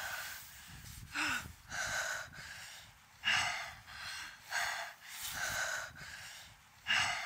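A teenage boy breathing hard through the mouth in pain, a run of short gasping breaths in and out, roughly one a second, after spraining his ankle.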